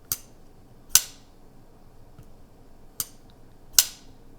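Folding pocket knife being flicked open and shut: four sharp clicks in two pairs, the blade snapping out and back.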